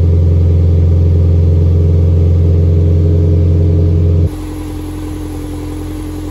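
Exhaust of a 2005 Toyota Prius's 1.5-litre four-cylinder engine running steadily, heard from beneath the car. A deep, louder drone with a strong low hum lasts until about four seconds in. Then it drops to a quieter, smoother running sound with a faint steady hum.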